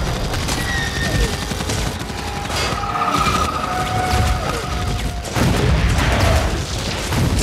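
Film battle sound effects: dense sci-fi blaster fire and impacts, with a louder explosion about five and a half seconds in.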